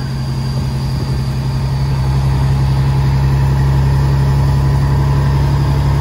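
Semi truck's diesel engine running, heard from inside the cab as a steady low drone that grows a little louder about two seconds in.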